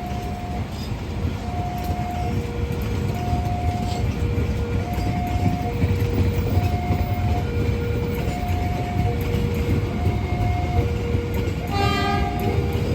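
Railway level-crossing warning alarm sounding a steady alternating high-low two-tone, over the rumble of a passing train. Near the end the train's horn gives one short blast.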